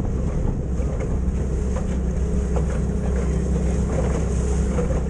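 Outboard motor running steadily as a small aluminium boat travels across open water, with wind rushing over the microphone.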